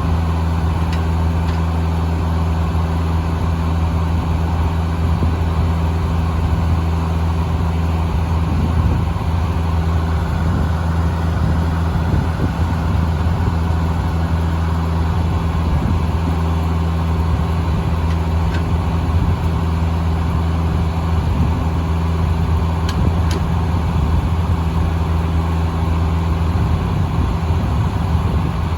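Engine powering a Foley Belsaw circular sawmill, running steadily at constant speed with a deep, even hum.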